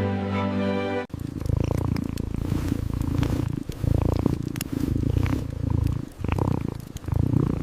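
Cat purring, a low rumble that swells and fades with each breath about once a second. It begins abruptly about a second in, as music cuts off.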